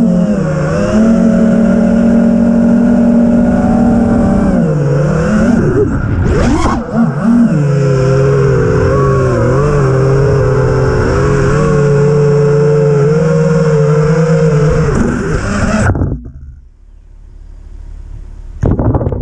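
6S FPV quadcopter's 2406 brushless motors and Gemfan propellers whining in flight, the pitch dipping and surging with throttle changes about five to seven seconds in. The sound cuts off suddenly about sixteen seconds in, with one short blip of throttle near the end.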